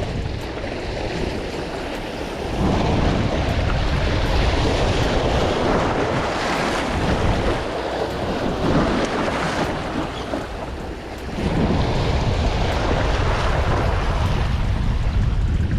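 Wind buffeting the microphone with a steady low rumble, over surf washing against the jetty in long swells that build and fade.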